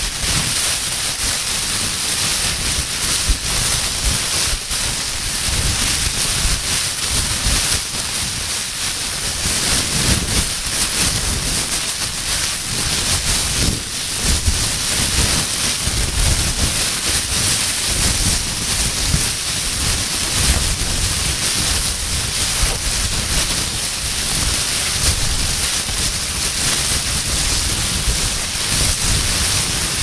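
A plastic bag being crumpled and handled without a break: dense, crackling crinkle at an even, fairly loud level, with irregular low bumps from the handling.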